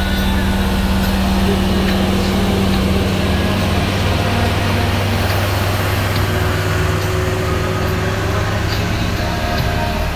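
Heavy diesel truck engine running steadily, heard from inside the cab while driving on a dirt haul road, with road and tyre noise.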